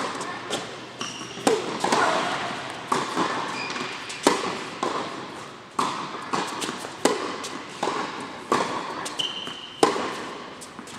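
Tennis balls struck by rackets and bouncing on a hard indoor court: sharp pops every half second to a second, each echoing in the large hall, with a few short high shoe squeaks.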